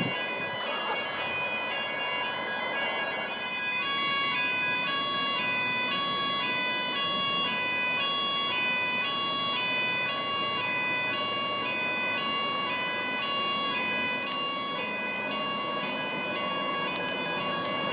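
A two-tone siren switching between a high and a low note about every 0.7 s, over the rumble of an InterCity 225 electric train approaching.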